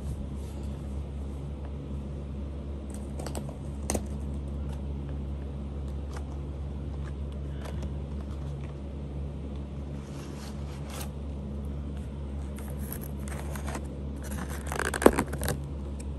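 A model locomotive's clear plastic clamshell and foam packaging being handled: scattered light clicks and rustles, then a burst of crinkling and scraping with one sharp click about fifteen seconds in. A steady low hum runs underneath.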